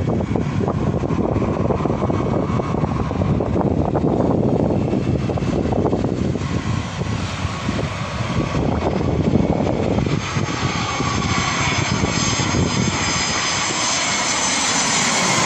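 Jet airliner approaching low overhead: a loud low rumble, joined about ten seconds in by a high engine whine that grows louder toward the end.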